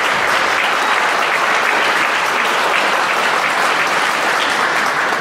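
An audience applauding, many people clapping in a dense, steady patter.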